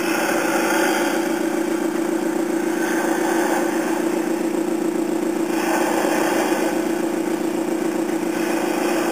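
Simulated diesel towboat engine from a Graupner sound module, played through the model boat's onboard speaker: a steady running drone with a fast, even pulse.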